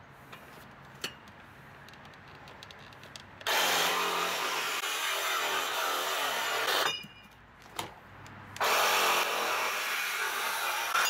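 Handheld power saw cutting through a metal chain-link gate spreader bar. It runs in two steady bursts of about three seconds each: the first starts about three and a half seconds in, and the second follows a second and a half after the first stops.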